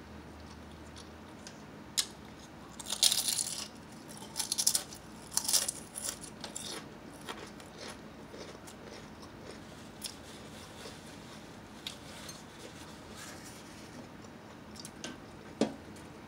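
A person biting and chewing Lay's potato chips: a run of loud, crisp crunches in the first half, then quieter, scattered chewing clicks, with one louder crunch near the end.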